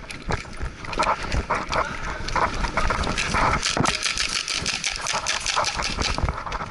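Dense, irregular clicks and knocks of an indoor airsoft fight, with no steady rhythm.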